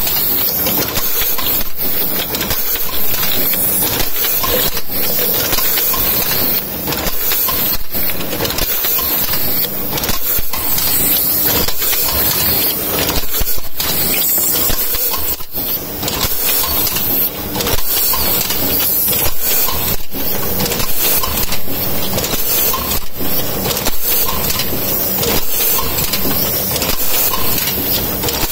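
Automatic tube filling machine running: a steady mechanical clatter with sharp knocks recurring roughly once a second as it works through its cycle.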